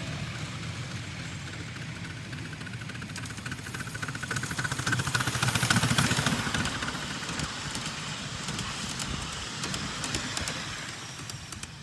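Miniature railway train running past close by: the locomotive and its carriages rumble along the narrow-gauge track with a rapid clicking of wheels over the rails, loudest about six seconds in as the locomotive goes by, then fading as the carriages follow.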